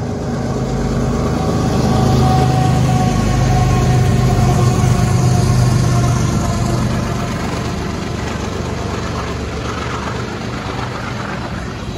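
Two GE ES44 diesel-electric locomotives, an ES44C4 and an ES44AC, passing close at speed, their steady engine drone loudest about two to six seconds in. It then eases as the loaded ethanol tank cars roll by with wheel and rail noise.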